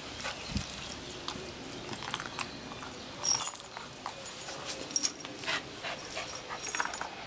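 A dog close by, making small sounds as it plays with a ball, with scattered clicks and knocks and a few brief high whines.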